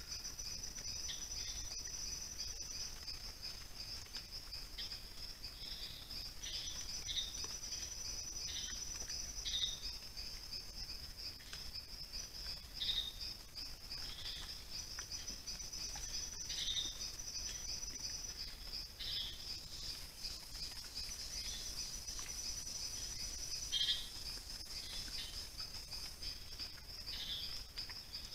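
A steady chorus of night insects such as crickets: a continuous high shrill with a pulsing trill above it, and short chirps breaking in every second or two.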